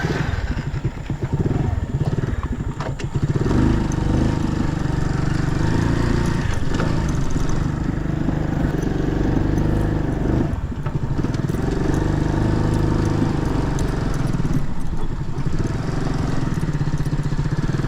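Small motorcycle engine running as it rides off, its pitch rising and falling a few times with the throttle.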